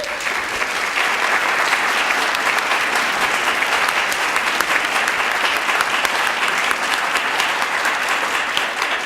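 Audience applauding steadily, a dense patter of many hands clapping in a large hall, fading out just after the end.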